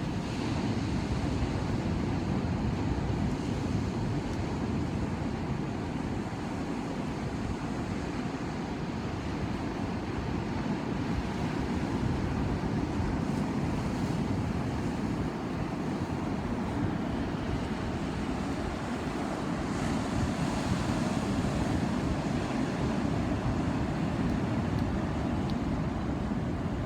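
Ocean waves washing and breaking in a steady low rush that swells and eases every several seconds, with wind buffeting the microphone.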